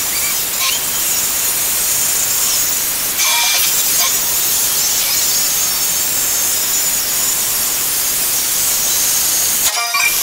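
Steady, fairly loud sizzling hiss of steel being cut and welded: an angle grinder cutting steel tube, then a MIG welding arc, with a slight jump in level about three seconds in.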